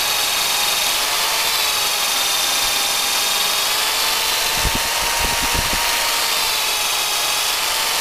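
Cordless drill running steadily as its bit bores a taphole into a maple trunk: a continuous motor whine whose pitch wavers slightly. A few low knocks come about five seconds in.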